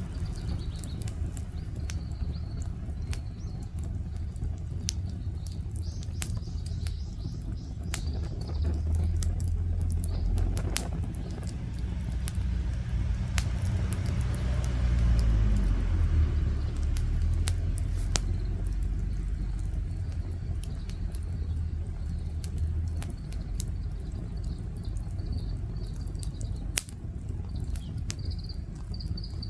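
Outdoor wood bonfire crackling, with many sharp irregular pops over a low steady rumble that swells around the middle. Birds chirp faintly at the start and near the end.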